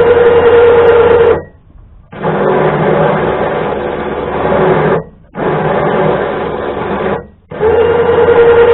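Electric winch motor running in bursts, switched off and on again three times with short silences between runs. The middle run is quieter and lower in pitch.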